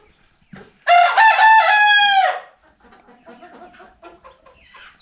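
A young rooster crows once, about a second in: a high, strained call lasting about a second and a half, opening with a few quick steps in pitch and then held. Softer clucking follows. The birds are growing cockerels still learning to crow.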